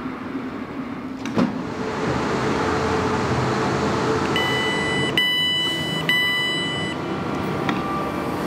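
South Western Railway electric train at the platform with a steady running noise. A little over four seconds in, the door-open button is pressed: the door alert sounds three long high two-tone beeps, with a clunk as the door releases and slides open.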